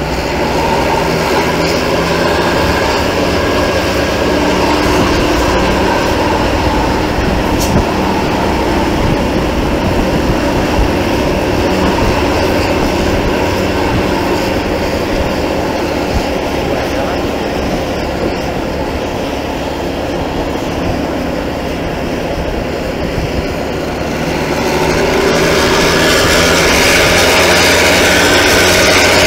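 Steady engine and road noise of motor traffic with a low hum, growing louder and hissier about 25 seconds in as a vehicle comes close.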